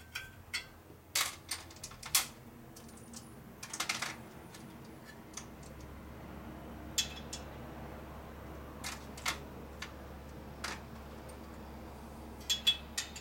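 Metal clicks and clinks of a hand tool and sockets being fitted to the bolts on the head of an air compressor pump, with a short rattle about four seconds in. A low steady hum comes in underneath about five seconds in.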